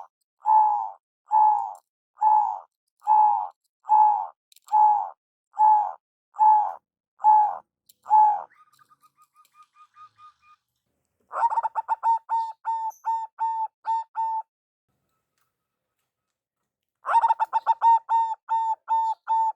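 Zebra doves (perkutut) cooing: about a dozen evenly spaced coos, then after a short pause two runs of rapid stuttering coos that settle into an even series, with a few seconds of silence between them.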